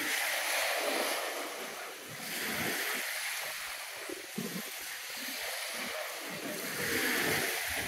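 Small lake waves washing onto a beach, the hiss of the water rising and falling every few seconds.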